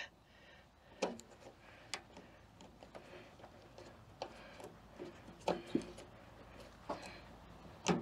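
Scattered light clicks and knocks, about one a second, from hands working the battery compartment on the underside of a tankless gas water heater while fitting its two D-cell igniter batteries.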